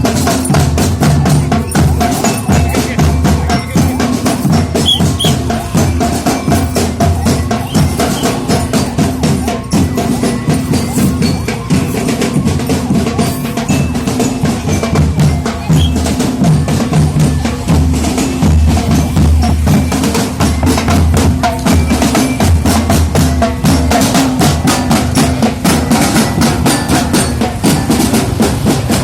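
Loud procession music driven by fast drumming, with a heavy, steady bass underneath.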